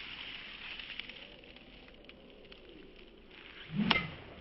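Golf club striking a golf ball off grass: one sharp crack with a short ring near the end, just after a brief low rush. Faint crackling noise before it.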